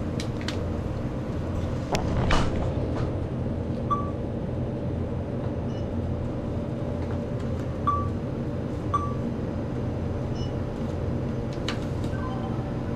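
Short electronic beeps from a convenience-store checkout's point-of-sale equipment, three of them, about four, eight and nine seconds in, over a steady low hum of the shop, with a few sharp clicks as items are handled at the counter.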